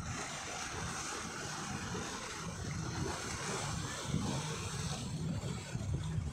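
Sea waves washing over rocks at the shoreline, a steady rush, with wind buffeting the microphone in uneven low rumbles.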